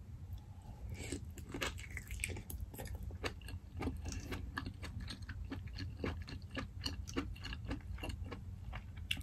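Close-miked chewing of sauce-soaked lobster meat: a steady run of small wet clicks and smacks, several a second, over a low steady hum.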